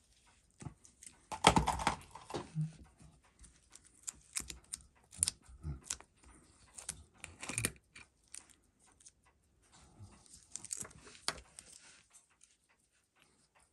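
Small irregular clicks, taps and rustles of tools and parts being handled on a watchmaker's bench while a Seiko 6139 chronograph is taken apart. The loudest cluster of clicks comes about one and a half to two seconds in.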